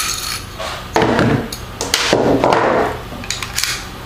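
All-steel CZ pistol being field-stripped by hand: sharp metal clicks, and two longer scraping stretches about one and two seconds in as the slide is worked back and lifted off the frame over its recoil spring, with knocks of steel parts against a wooden tabletop.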